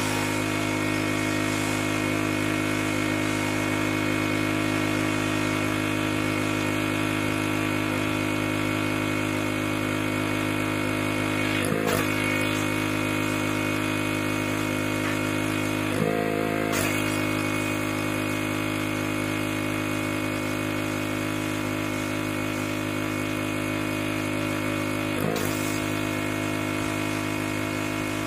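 Pressure washer running steadily, its hum holding one note with a brief dip in pitch three times.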